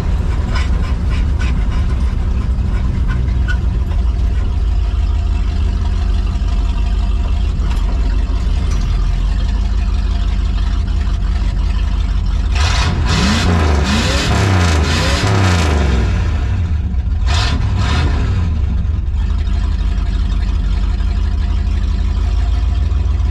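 Engine of a 1985 Ford F-250 race truck with an Edelbrock carburetor, running under way with a steady low drone. About halfway through, the engine revs up and back down with a loud rush of noise, and two shorter rushes follow soon after.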